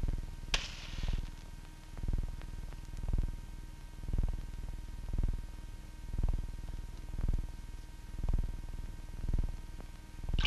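Background film music: a slow, steady low drum beat, about one thump a second, over a faint steady hum, with a short hiss about half a second in.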